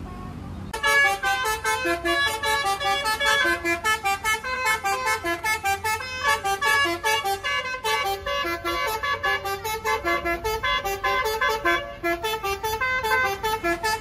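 A bus's basuri telolet musical horn playing a fast melody of short, clipped notes. It starts about a second in and stops abruptly near the end.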